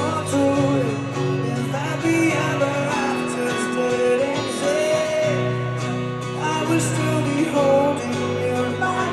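Live band playing a song, guitars and bass holding sustained notes with a wavering melodic line over them, in a break between sung lines.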